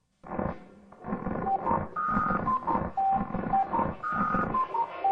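Electronic phone-style beeps at several pitches, played as a short tune over a distorted, pulsing music backing, processed through a voice-changer effect.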